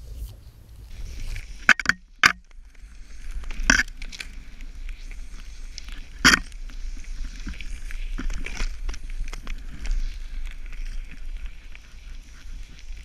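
Snowboard sliding through deep powder snow with a steady hiss, wind rumbling on the pole-mounted camera's microphone. There are a handful of sharp knocks, the loudest about two seconds in and again about six seconds in.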